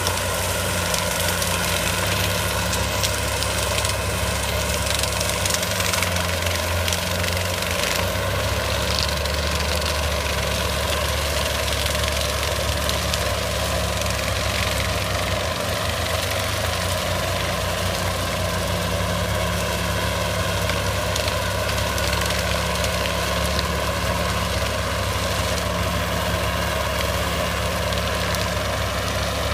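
Tracked marsh vehicle running steadily as it mows through marsh grass with its front-mounted cutter head.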